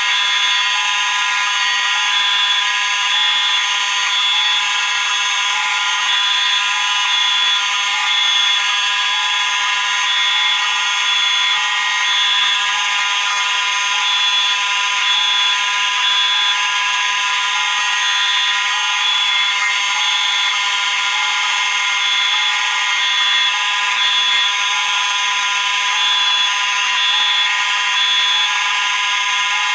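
Many fire alarm sounders of several makes going off together in one continuous, loud, many-toned alarm din.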